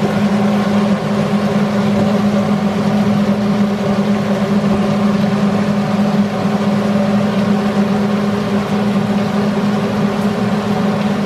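Range-hood exhaust fan running with a steady low hum, over an even hiss of pork belly frying in a hot wok.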